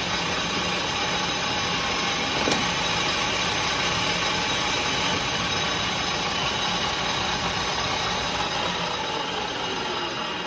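Metal lathe running with a piston spinning in the chuck while a tool cuts the dish in its crown: a steady mechanical whir, with a single click about two and a half seconds in.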